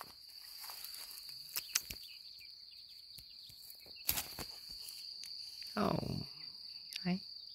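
Steady high chirring of insects in the grass, with a few sharp clicks of steps and rustling through the grass, and two brief louder low sounds near the end.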